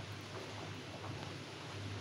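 Faint room tone: a steady low hum under a light, even hiss, with no distinct event.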